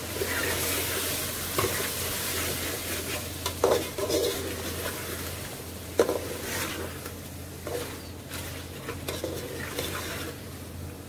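Chicken liver masala sizzling in an aluminium pot while a metal spoon stirs and scrapes through it. There are a few sharp clinks of the spoon against the pot, the loudest about six seconds in.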